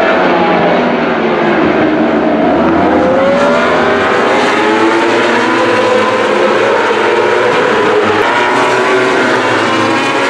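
A pack of superbike racing motorcycles running at full race pace, many engines heard at once with their pitches rising and falling as the bikes pass through a corner.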